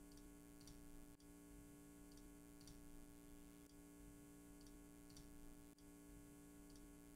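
Near silence: a faint steady electrical hum with a few faint, scattered computer mouse clicks.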